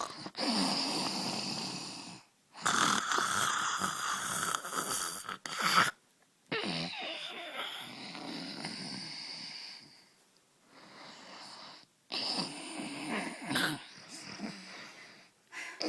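A person snoring: a run of about five long snores, each two to four seconds, with short breaks between them.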